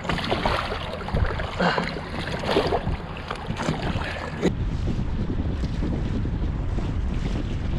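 Wind buffeting the microphone on a small boat on open water, with short irregular knocks in the first half. About four and a half seconds in, the sound changes abruptly to a steadier low wind rumble.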